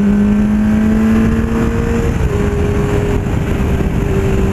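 Honda CBR600 F4 inline-four engine under way, its pitch climbing slowly, then dropping about two seconds in and running steady after, over a steady rush of wind noise.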